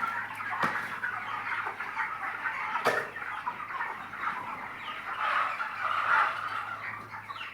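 A flock of 25-day-old broiler chickens clucking and cheeping together in a dense, steady chatter, with a sharp click about three seconds in.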